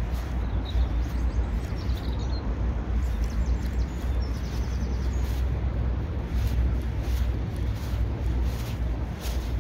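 Steady low wind rumble buffeting the microphone, with faint bird trills in the first half while a baitcasting reel is cranked, its winding heard only as soft faint clicks.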